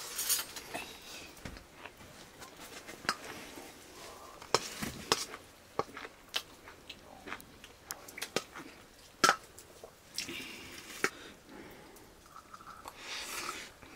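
A metal spoon clinking and scraping against a stainless steel plate as rice and curry are mixed and scooped, in scattered sharp clicks, with some chewing.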